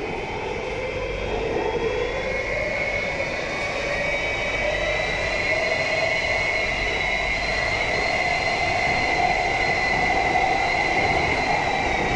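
SMRT C151B metro train running through a tunnel, heard from inside the carriage: rumbling wheel and tunnel noise under a steady high electric whine from the traction equipment, with a lower tone that rises slightly in pitch as the whole sound slowly gets louder.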